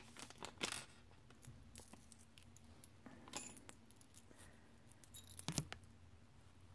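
Faint scattered light clicks and clinks of small metal rings being handled, with a few sharper ones about half a second, three and a half and five and a half seconds in.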